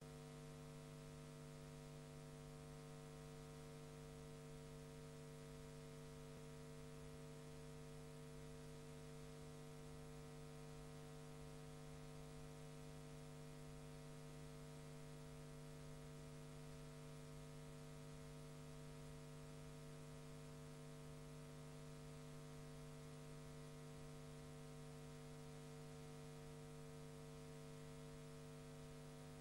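Near silence: a faint, steady electrical hum with hiss on an otherwise silent soundtrack, unchanging throughout.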